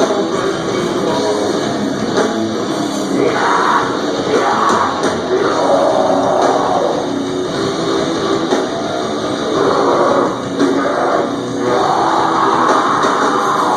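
Live metalcore band playing: distorted electric guitars, bass and drum kit with harsh vocals, loud and dense throughout, as recorded from the room by a camera microphone.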